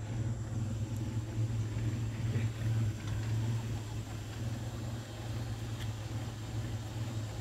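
Car engine running steadily as the car creeps along, an even low hum with faint road noise.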